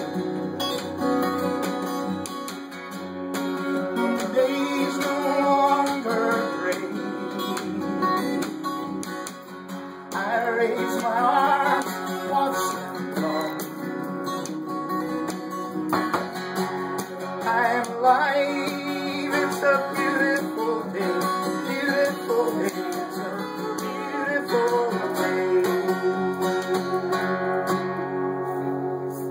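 Acoustic folk instrumental: an acoustic guitar strummed steadily under a wavering melody line, with no words sung. The music stops at the very end.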